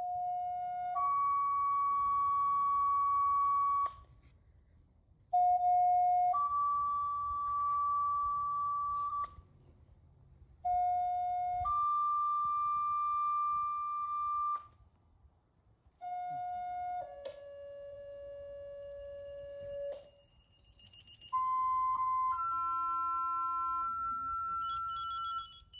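Fire dispatch two-tone sequential paging tones sounding the last alarm call. Each pair is a short steady tone followed by a longer, higher steady tone. The same pair sounds three times, then two pairs at other pitches follow, the fourth stepping down instead of up.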